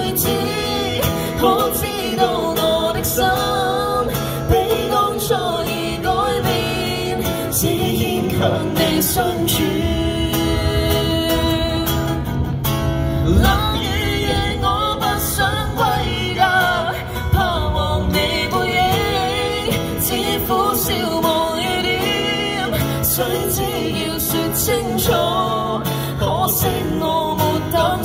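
A woman singing to guitar accompaniment, live.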